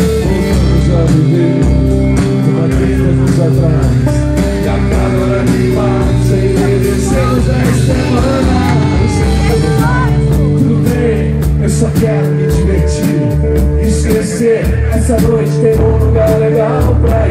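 Live rock band playing with a singer: electric guitar, bass and drums over a steady beat, recorded on a phone from close in among the audience.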